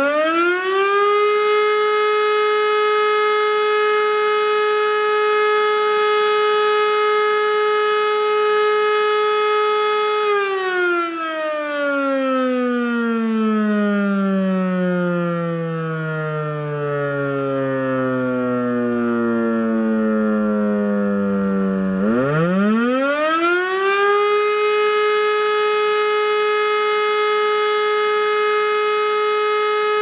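E57 electro-mechanical siren sounding the fire alarm signal, its rotor turning backwards, the wrong way round. It holds a steady full-pitch wail for about ten seconds, then falls slowly in pitch as the motor is cut and the rotor coasts down. About twenty-two seconds in it spins back up and rises quickly to full pitch again, the next blast of the interrupted alarm.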